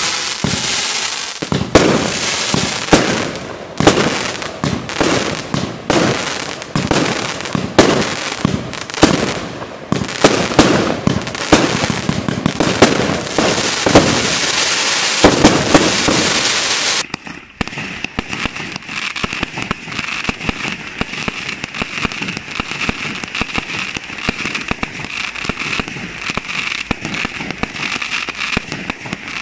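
Multi-shot consumer firework cakes firing a rapid barrage of shots and bursts with crackle, loud and nearly continuous. About two-thirds of the way through, it cuts to quieter, steady rapid popping.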